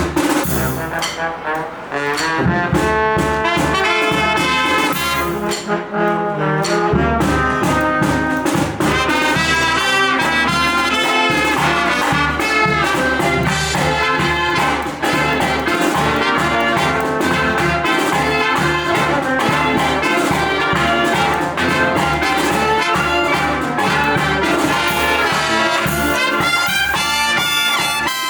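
Live brass band playing an upbeat, jazzy tune, with trumpets and trombones carrying the melody.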